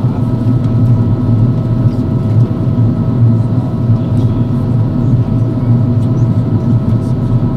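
Steady cabin noise inside an Airbus A330-200 in flight: a constant low rumble of engines and airflow, with a few faint steady whining tones above it.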